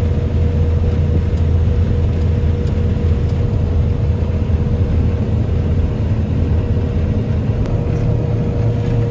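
Self-propelled windrower running steadily while cutting rye: a low engine drone with a constant whine above it.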